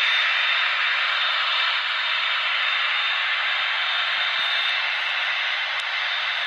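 Jet airliner engines, heard as a steady rushing noise with a thin high whine running through it, slowly easing off.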